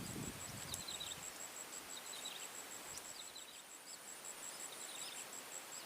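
Swamp ambience: an insect calling in a high, evenly pulsing buzz throughout, with a small bird giving clusters of short high chirps about once a second. Some low rustling in the first second.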